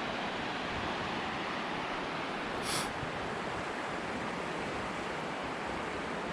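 Steady rush of falling water from a river waterfall, with a brief louder hiss nearly three seconds in.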